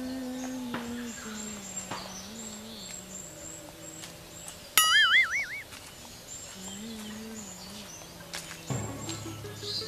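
A low voice humming a slow, wavering tune, with birds chirping faintly. About five seconds in comes a short, loud warbling whistle, and near the end background music with a steady bass line starts.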